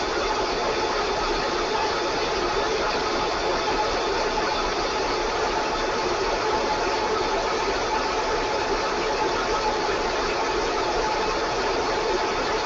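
Countertop blender motor running steadily, blending a liquid, with the lid held down.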